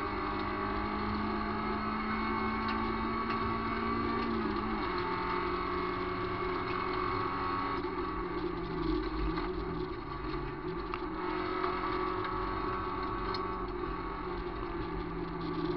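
VW Gol rally car's engine running hard, heard from inside the cabin over constant gravel and tyre noise. The engine note steps down in pitch about four and a half seconds in and wavers briefly around the middle.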